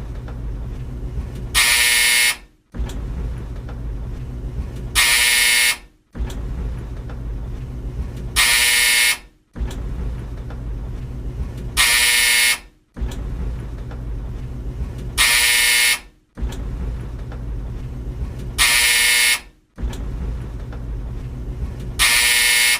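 Old tumble dryer running with a steady low rumble, cut by its loud buzzer seven times, about every three and a half seconds. Each buzz lasts under a second and drops out briefly before the rumble comes back.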